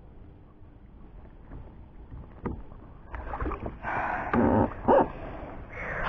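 A channel catfish splashing and thrashing at the water's surface as it is clamped in a lip grip and hauled out, starting about halfway through, with a few sharp knocks.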